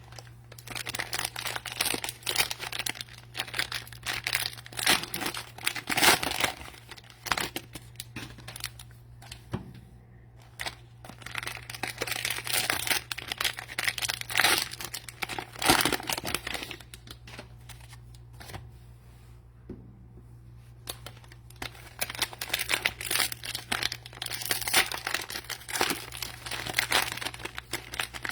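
Cellophane-wrapped trading card packs crinkling as they are handled and sorted, in three spells of dense rustling.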